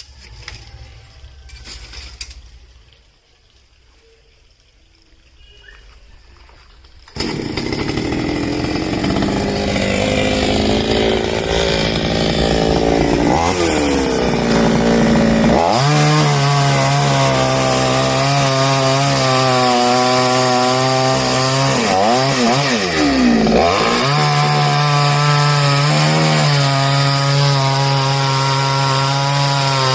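Chainsaw comes in loud about seven seconds in and runs at high revs cutting through a coconut palm trunk. Its engine pitch dips and recovers a few times as the chain loads up in the wood.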